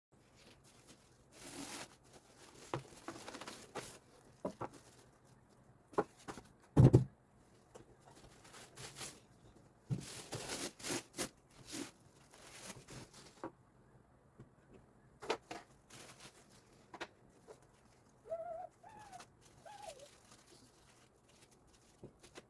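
Unpacking a boxed portable air cooler: irregular rustling and scraping of packaging, with one loud knock about seven seconds in. A few short wavering pitched sounds come near the end.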